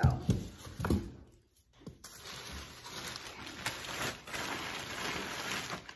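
Thin plastic shopping bag crinkling and rustling as it is handled and opened, after a couple of knocks in the first second.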